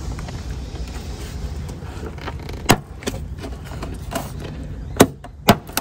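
Plastic trim clips on a Toyota Prado 150's door-sill trim snapping loose as the panel is pried up by hand: a few sharp clicks, the loudest about two and a half seconds in and two close together near the end.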